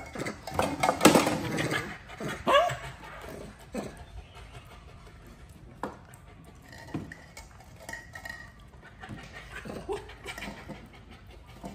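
Cups and dishes clinking and knocking while pet monkeys get their milk smoothie, with a short squeaky call about two and a half seconds in. The densest clatter is in the first two seconds, then single knocks every second or two.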